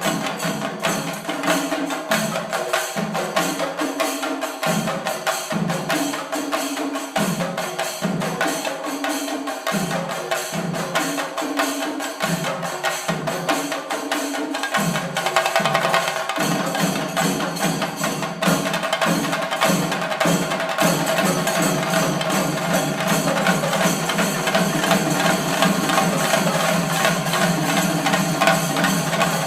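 Shinkari melam: Kerala chenda drums beaten with sticks in fast, dense strokes over a steady ringing tone. The low drumming comes in broken phrases at first, then turns into a continuous roll a little past halfway.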